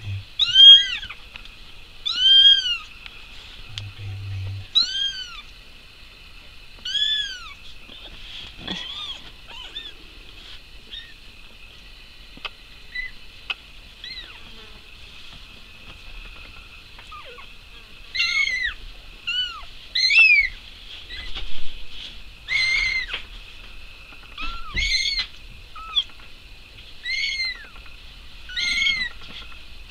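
Young kittens meowing: short, high mews that rise and fall in pitch. Several come in the first few seconds, then a pause, then a quicker run of mews through the second half.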